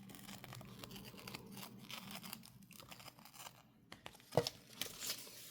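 Faint rustling and crinkling of packaging as sticker sheets and tape rolls are handled, with a sharp tap a little over four seconds in.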